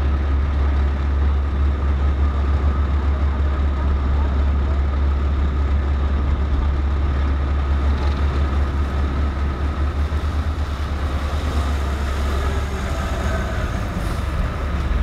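Diesel engine of a front-loading garbage truck running as the truck drives slowly past, a steady low rumble.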